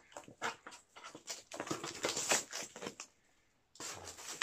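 A small product box being handled and opened by hand: rustling, scraping and tapping of packaging in quick irregular bursts, with a short pause about three seconds in.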